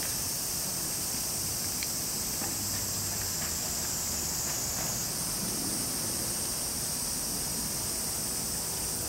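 Steady high-pitched drone of insects calling, with a slight step up in pitch about halfway through; the elephant makes no sound.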